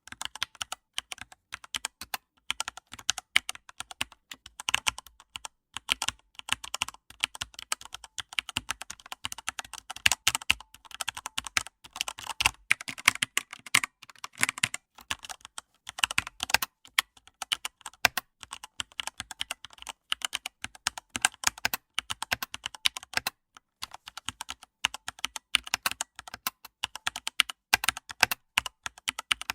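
Typing on a computer keyboard: a fast, irregular run of key clicks with brief pauses between bursts.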